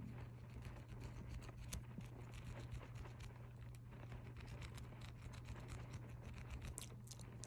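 Close-miked ASMR mouth sounds and finger flutters: a dense, irregular run of small wet clicks and soft rustles, over a steady low hum.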